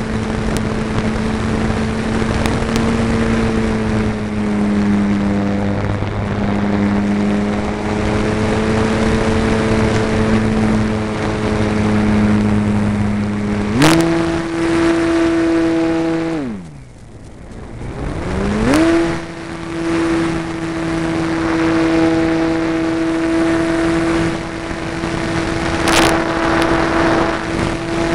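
Brushless electric motor and propeller of a HobbyZone Super Cub RC plane whining steadily in flight, heard from on board with a steady rush of air. About 14 seconds in the pitch steps up as the motor speeds up; a couple of seconds later the motor winds down almost to a stop, then spins back up within about two seconds and holds the higher pitch to the end.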